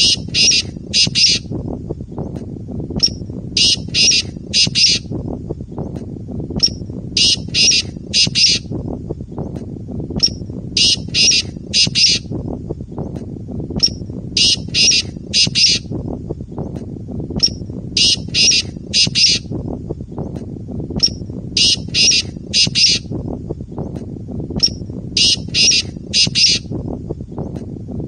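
Male black francolin calling: a short note followed by three loud notes in quick succession, the phrase repeated about every three and a half seconds, eight times, over a steady low background noise. This is the call rendered in Urdu as "Subhan teri qudrat".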